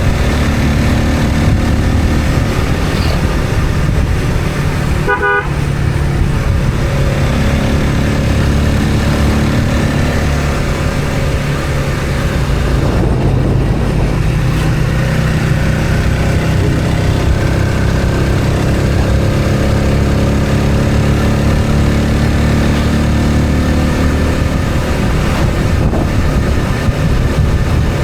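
Steady engine and road noise of a motor vehicle on the move, with a short horn toot about five seconds in.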